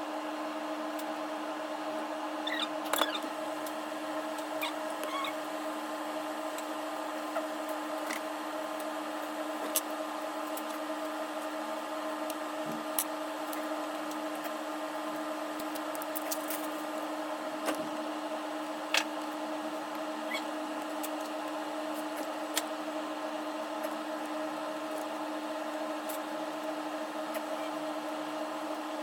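A steady electrical or mechanical hum from workbench equipment, with a few light clicks and taps scattered through it.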